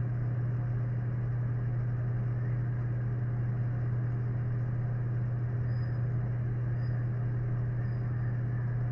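Steady low electrical hum on the microphone signal, with a faint hiss over it. It is the humming fault in the recording, which the lecturer puts down to the microphone.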